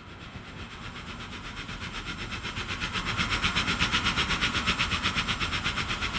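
Train passing: a fast, even rhythmic pulsing, about six beats a second, that grows louder to a peak about four seconds in and then eases slightly.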